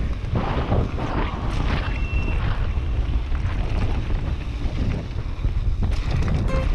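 Wind buffeting the microphone over the steady rumble and rattle of a mountain bike riding down a dirt trail.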